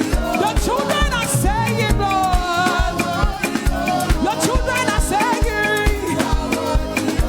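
Praise-and-worship band music with a steady drum beat and melody lines above it.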